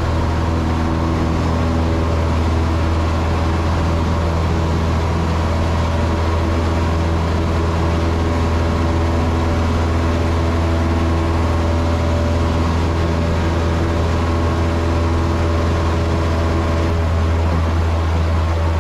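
Cessna 162 Skycatcher's four-cylinder Continental O-200 engine and propeller at full takeoff power, heard from inside the cockpit. It is a loud, steady drone that holds through the takeoff roll, liftoff and initial climb.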